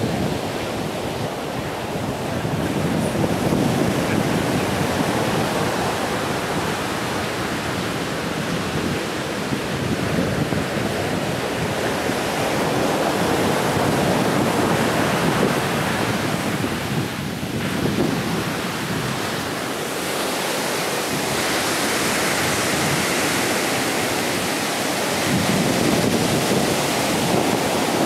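Ocean surf rushing steadily on a beach, with wind buffeting the microphone.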